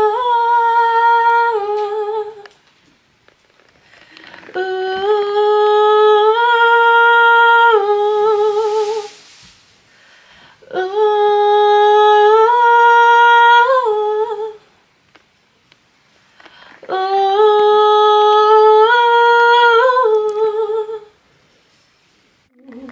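A woman's voice singing the same short, high, held melodic line four times, each three to four seconds long and stepping through a few pitches, with short pauses between them: repeated recording takes of a higher harmony line into a studio microphone. A brief hiss follows the second take.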